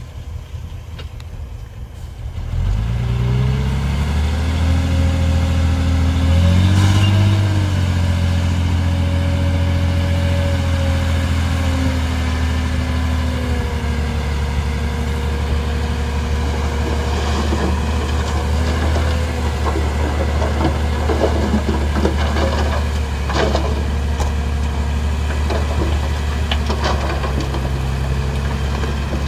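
Diesel engine of heavy earthmoving machinery revving up sharply about two and a half seconds in, swelling briefly once more, then running steadily, with scattered knocks in the second half.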